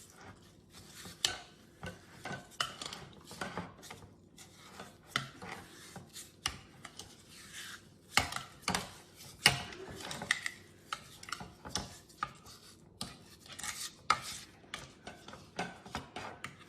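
A spoon stirring and scraping inside a bowl, coating fish fillets in oil and seasoning: irregular soft scrapes and clicks of the spoon against the bowl, several a second.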